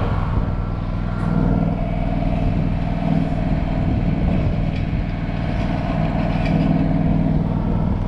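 Engine of an engine-driven welding machine running at a steady speed with an even hum.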